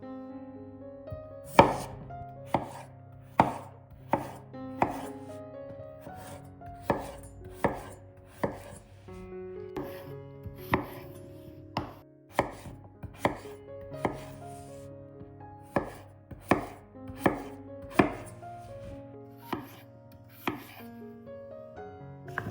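Knife cutting food on a cutting board: slow, separate chops about once a second, with short pauses between runs of cuts.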